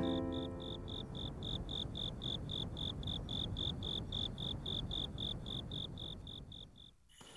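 Night ambience of a cricket chirping steadily, about four short high chirps a second, over a low background hiss. It cuts off abruptly near the end.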